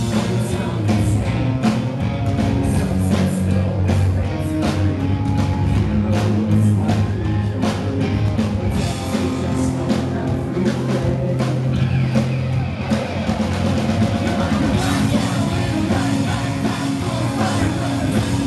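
Pop-punk rock band playing live at full volume: pounding drums, electric guitars and a sung lead vocal. The sound grows brighter and denser about fifteen seconds in.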